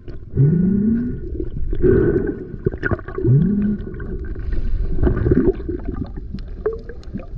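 Muffled underwater sound of water rushing past the camera housing as the diver swims, swelling about every second and a half. Two short rising tones come near the start and about three seconds in, with faint clicks scattered throughout.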